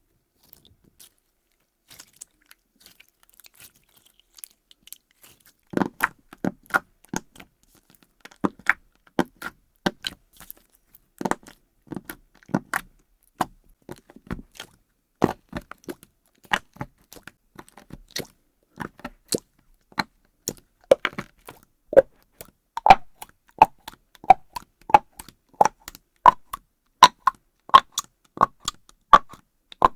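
Hands pressing and squeezing slime, making a run of short, sharp clicks and pops, about one or two a second. The clicks start about five seconds in and grow louder toward the end, where they take on a higher, popping tone.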